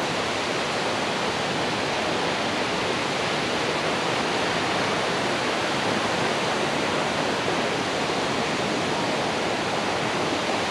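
Steady rushing of flowing water, an even hiss with no breaks.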